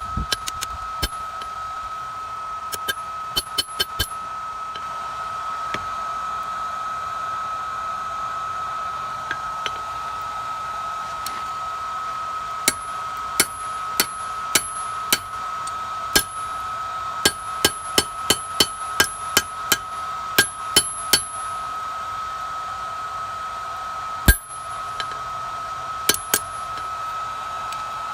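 Hand hammer striking steel on an anvil, sharp ringing blows in runs of several strikes with pauses between, one blow near the end louder than the rest. Underneath runs the steady whir of a forge blower with a constant whine.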